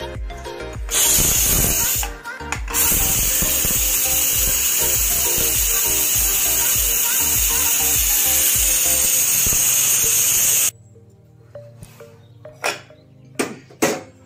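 Pressure cooker whistle: steam forcing its way out under the weighted valve in a loud, steady hiss, the sign that the cooker has reached full pressure. It starts about a second in, dips briefly around two seconds, then holds until it cuts off suddenly near ten and a half seconds.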